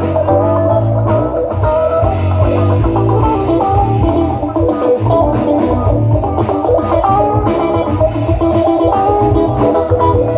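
Electric guitar and bass guitar playing together: quick runs of picked guitar notes over a steady bass line.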